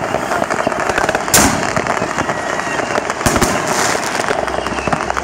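Fireworks and firecrackers going off all around in dense crackling, with a loud bang about a second and a half in and a cluster of bangs a little after three seconds.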